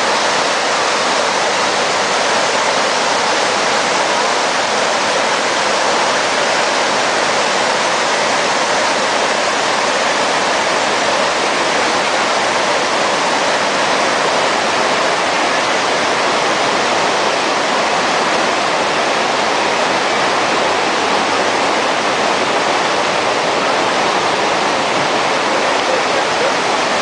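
Steady, even rushing noise of falling water, without breaks or changes.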